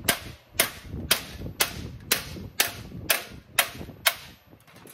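Hand hammer blows on sheet metal, crushing a shrinking tuck down onto itself, with the panel laid over a stainless steel sheet on the work table. Even strikes about two a second, nine in all, stopping a little after four seconds in.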